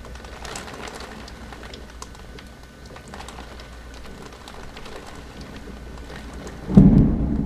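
Heavy rain pattering steadily, with scattered light ticks of drops striking glass. Near the end a sudden loud low rumble breaks in.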